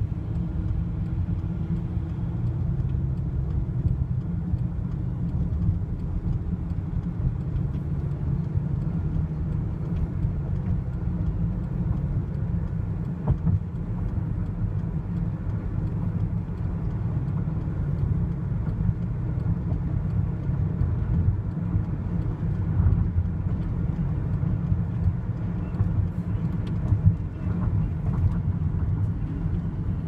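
Car interior road noise while driving: a steady low rumble of engine and tyres heard inside the cabin.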